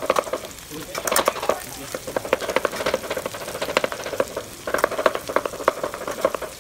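Shallots and garlic cloves frying in oil in an aluminium wok, stirred with a spatula that scrapes and clicks against the pan in bursts over a steady sizzle.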